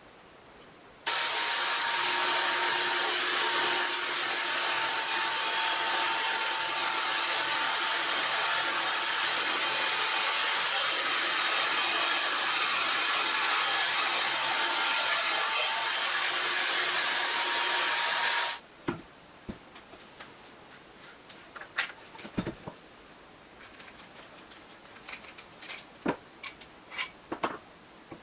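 Electric power tool running steadily with a high motor whine over a rasping noise of material being worked. It starts about a second in and cuts off suddenly after about seventeen seconds, followed by a few light clicks and taps.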